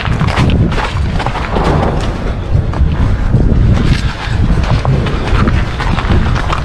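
Wind buffeting a body-worn camera's microphone, with the rustle and scuff of someone walking over snow.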